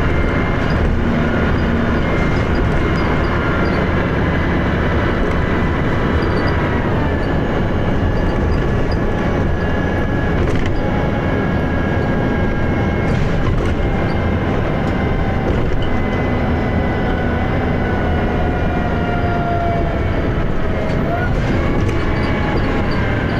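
Dennis Arrow bus under way: its engine runs hard with a steady thrash, and high whining tones from the drivetrain slide up and down in pitch as the bus changes speed.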